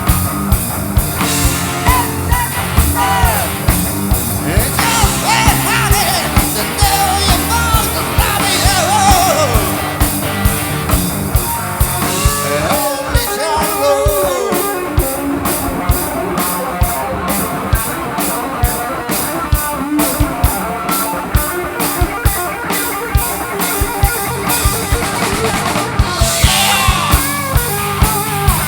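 Live rock band playing an instrumental passage: an electric guitar lead with bending, gliding notes over a steady drum beat of about two hits a second and bass, heard through the mixing desk.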